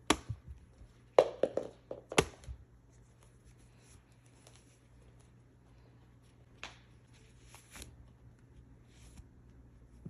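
Hands handling doll packaging: a cluster of sharp clicks and rustles in the first two and a half seconds, then a couple of isolated taps later on.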